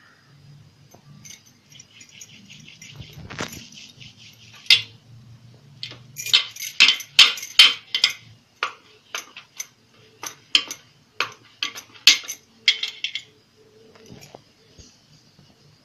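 Glass and gold bangles on a wrist jingling and clinking as the hands roll dough back and forth on a steel plate. The clinks are sparse at first and then come in a quick, dense run from about six seconds in until near the end.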